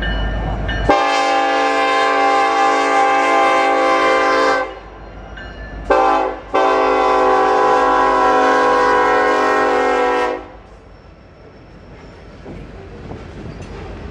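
Norfolk Southern SD70ACE locomotive's air horn blowing a long blast, a brief short one and another long blast, several notes sounding at once. A low rumble of the approaching locomotive comes before it, and the rumble of the loaded coal train rolling past rises after it.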